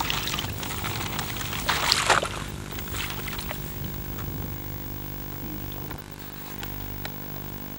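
A small engine running steadily, with a short burst of rushing noise about two seconds in.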